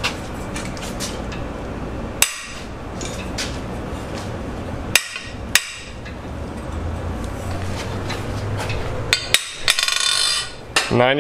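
Several sharp metallic clanks and cracks as a ratchet extended with a long steel cheater pipe is heaved around to break loose a tight cylinder head bolt. A brief metallic ringing comes near the end.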